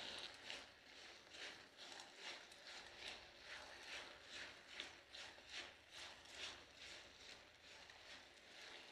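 Faint, even scraping strokes of a spatula stirring thick halwa and sugar in a steel kadhai, about two to three strokes a second, fading out near the end.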